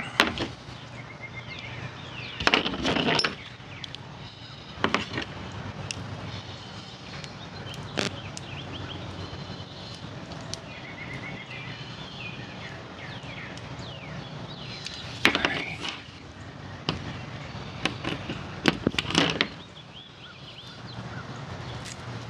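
Scattered clicks, clinks and knocks of tools and metal parts being handled on a workbench, some in quick clusters, over a steady low hum.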